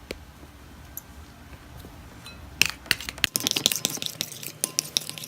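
A spoon stirring food colouring into water in a container, clinking quickly and irregularly against its sides. It starts about two and a half seconds in, after a single click near the start.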